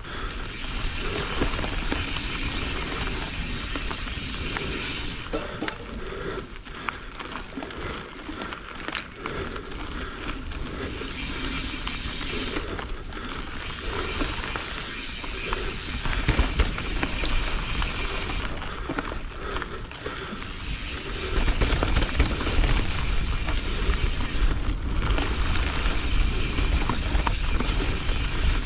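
Canyon Strive enduro mountain bike riding down a dirt trail: tyres rolling over packed dirt and dry leaves, with the chain and frame rattling over the bumps and wind rumbling on the camera microphone, heavier over the last third.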